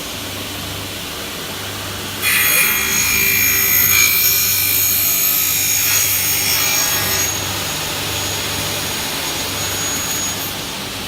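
Double-head aluminium cutting saw (09S) running. About two seconds in, the blades feed into a thick Xingfa aluminium profile and cut it with a loud, high-pitched, ringing screech for about five seconds. The motors then keep running while the blades retract.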